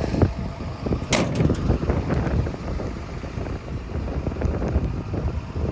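Komatsu PC210LC-10 excavator's diesel engine running, a steady low rumble with wind buffeting the microphone. A sharp metallic click about a second in.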